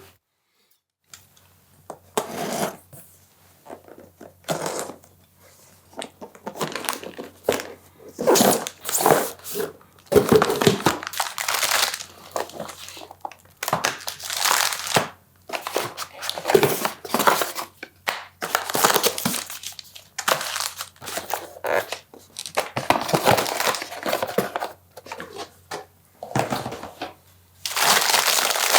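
Packaging being handled and unwrapped: irregular bursts of crinkling and rustling, with a longer unbroken crinkle near the end.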